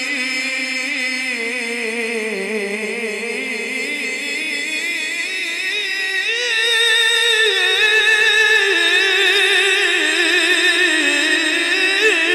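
A male Quran reciter's melodic tilawat: one long drawn-out phrase held without a break, the voice wavering and ornamenting the note, then stepping up higher and louder about six and a half seconds in. The voice is amplified through a microphone.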